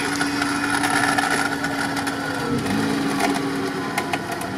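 Winch pulling a mud-stuck UAZ Patriot forward, its motor giving a steady whine under load, with a few sharp clicks near the end.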